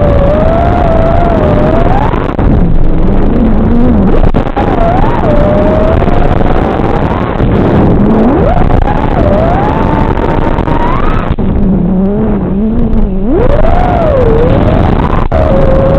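FPV racing quadcopter's Xing 2206 2750KV brushless motors spinning T-Motor 5143 props, their whine gliding up and down in pitch again and again as the throttle changes, over a steady rush of noise.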